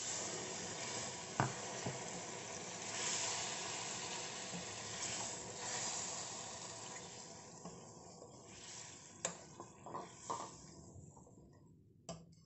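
Water poured into a steel kadai of fried potatoes and masala: a steady watery rush that slowly fades over about eight seconds. Then a few sharp clinks as a spatula stirs against the pan.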